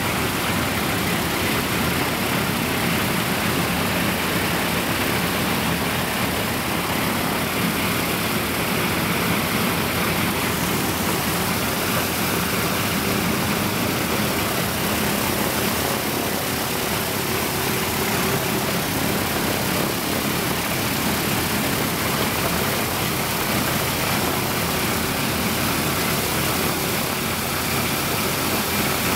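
Ilyushin Il-14T's right-hand Shvetsov ASh-82T fourteen-cylinder radial engine running steadily on its first run after restoration.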